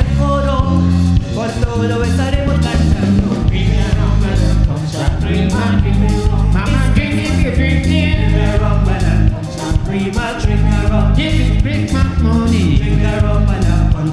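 Live soca parang duet: female and male vocals singing over a live band with a steady, driving bass beat.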